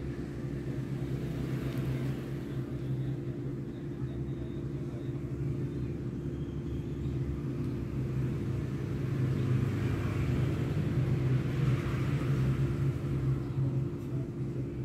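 Steady low mechanical hum at a constant pitch, running unchanged throughout.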